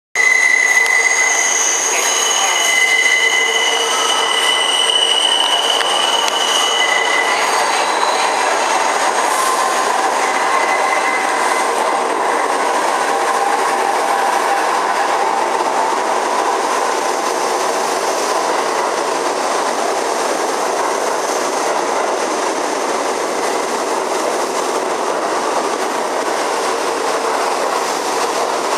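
Kawasaki R68A subway train pulling into an underground station. A high-pitched steady wheel squeal carries for the first several seconds, then the rumble and clatter of the wheels takes over as the cars run in along the platform.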